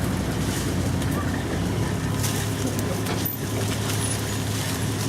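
Safari truck's engine idling steadily, a low even hum, with a few faint cracks and rustles over it.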